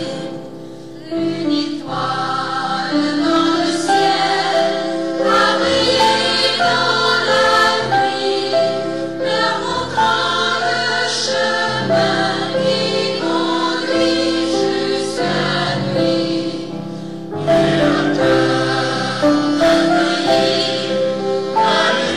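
Mixed choir of men's and women's voices singing a Christmas carol, with a short break between phrases about a second in.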